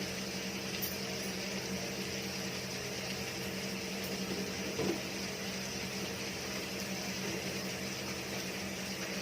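Chopped tomatoes frying gently in an uncovered pan, a steady soft sizzle over a constant low electrical hum.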